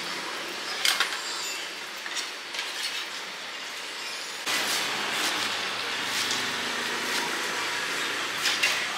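A kitchen knife knocking on a wooden chopping board a few times as chives are cut, with a sharp pair of knocks near the end, over a steady background din.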